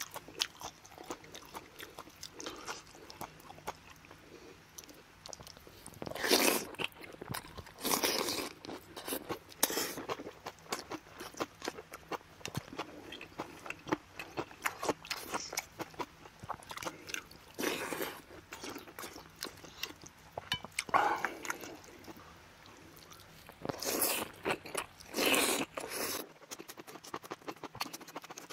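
Close-miked eating of rice soup and aged kimchi: steady chewing and wet mouth noises, with several louder short bursts of biting and slurping spread through.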